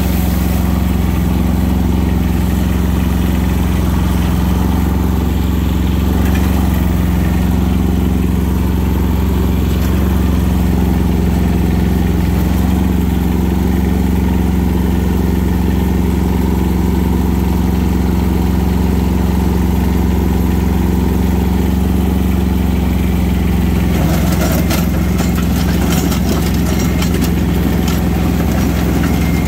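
Kubota compact tractor's diesel engine running steadily, heard from the driver's seat. Near the end a crackling rattle joins in over the engine.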